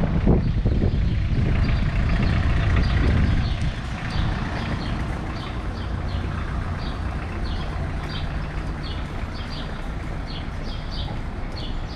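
Street traffic: a vehicle rumbles past in the first few seconds, leaving a steady low hum, and from about four seconds in a bird chirps in short high notes, about two a second.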